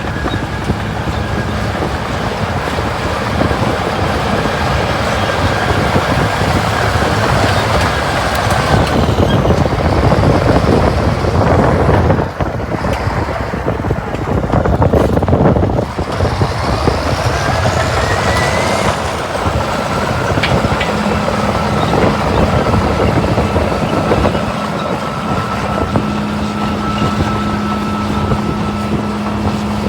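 Caterpillar D7 crawler dozer's diesel engine running steadily with a whine over it. A little before halfway the whine climbs in pitch for several seconds as the engine revs up, then drops back to a steady pitch.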